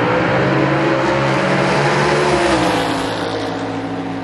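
Two drag-racing cars accelerating hard down the strip at full throttle, their engine notes running high. About two and a half seconds in the pitch drops, and the sound then fades as the cars pull away.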